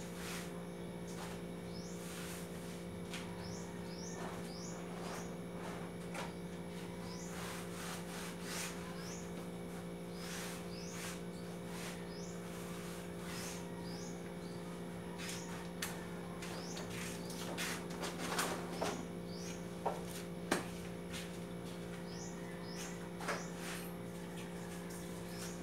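Steady low electrical hum under repeated little groups of short, rising high chirps. A few sharp clicks and knocks come about three quarters of the way through.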